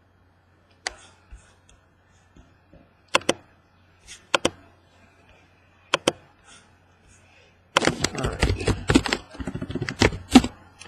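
Handling noise from trading-card packaging: a few scattered sharp clicks, then about eight seconds in a dense run of crackling and rustling as the next box or pack is handled and opened.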